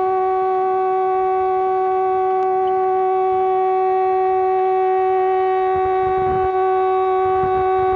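A steady, single-pitched tone with overtones, held without a break and without any change in pitch, over a faint low rumble that swells a little near the end.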